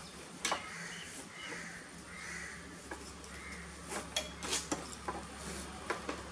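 Scattered clicks and rustles as a tank bag's mounting strap is loosened and worked through its buckle by hand.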